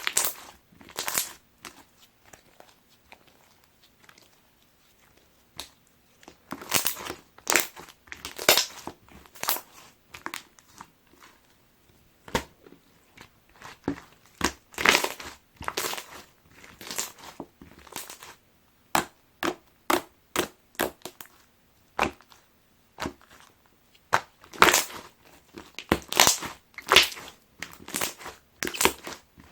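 Clear glitter slime being squished and pressed by hand: irregular clusters of sharp crackling pops, with a quieter stretch a few seconds in.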